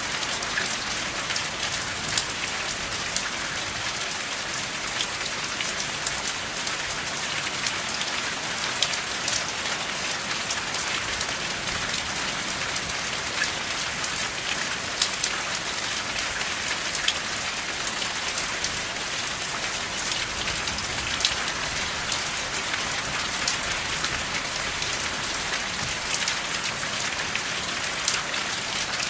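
Steady rain falling, an even hiss with louder single drops ticking now and then, without thunder.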